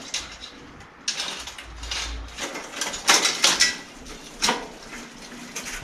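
Bicycle chain being worked back onto its sprocket by hand: scattered metallic clicks and rattles, busiest about three seconds in.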